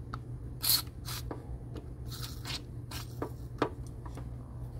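Aerosol penetrating lubricant sprayed in several short hissing bursts onto a fuel-line fitting, with a few light clicks and taps between the bursts.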